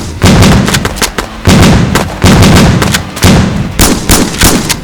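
Loud gunshot sound effects firing in a rapid, irregular volley of several shots a second, each with a deep boom.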